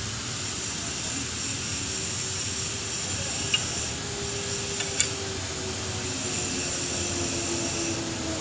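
Car engine running steadily with a constant drone and a high whine; two brief sharp clicks about three and a half and five seconds in. The engine is being checked for a knock.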